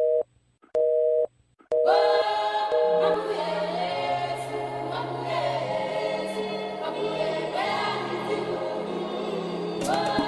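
A telephone busy tone beeping in short, evenly spaced pulses for the first second or two after the call drops. It is then overtaken by background music with choir-like singing over a bass line.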